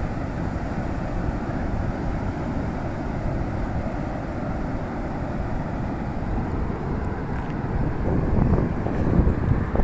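Wind buffeting the microphone over the steady wash of surf on a beach, louder for a while near the end.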